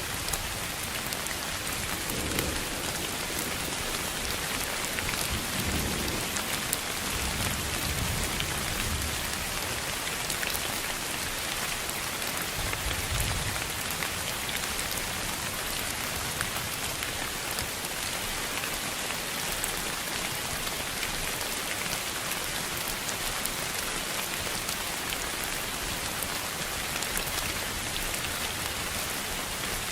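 A steady hiss of noise, even throughout, with faint scattered ticks. A few soft low rumbles come in the first half.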